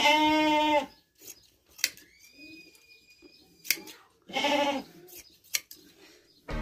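Sheep bleating twice: a long bleat at the start and a shorter one about four and a half seconds in. Between the bleats come a few sharp clicks from hand shears snipping through the wool.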